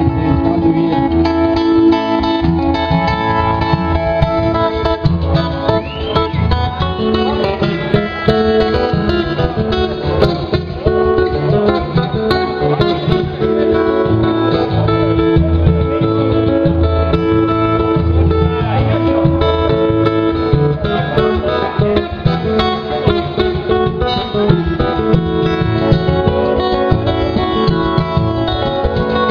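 Electric guitar playing an instrumental passage, several notes sounding together and changing steadily, at an even level.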